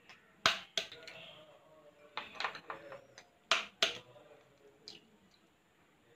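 Egg shells being cracked with a small kitchen knife over a steel saucepan: a series of sharp taps and cracks, in a few short groups.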